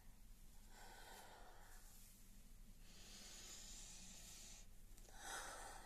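A woman's soft, audible breathing: a short breath about a second in, a longer breathy exhale around three to four and a half seconds, and a slightly louder breath near the end.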